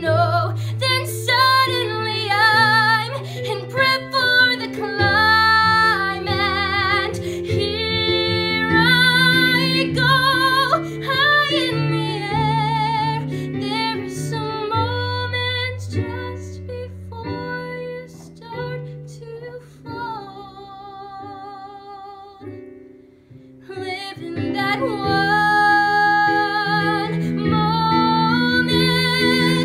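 A young woman singing a musical-theatre ballad with strong vibrato over piano accompaniment. The voice and piano thin out to a brief near-pause about three quarters of the way through, then build up again.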